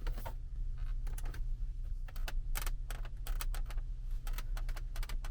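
Irregular plastic clicks and creaks from the Kia Carnival KA4's dashboard trim around the instrument cluster: the rubbing rattle the owner complains of, brought out as the trim is worked. A steady low hum sits underneath.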